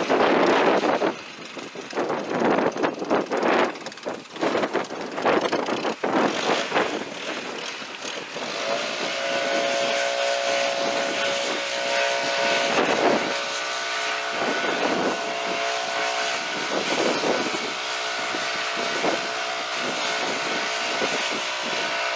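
Wind buffeting the microphone in irregular gusts, then from about eight seconds in a steady droning hum with several held tones, swelling louder every couple of seconds.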